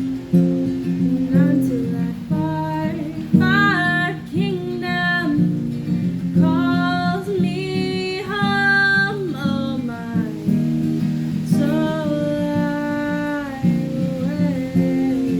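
Acoustic guitar strummed steadily while a singer sings a melody line over it, the voice coming in about a second and a half in and falling away near the end.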